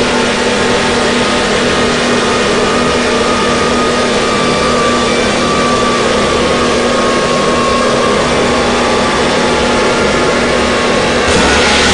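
Harsh-noise drone music: a dense, unbroken wall of static over steady low hums. Near the end a harsher, hissier layer suddenly cuts in.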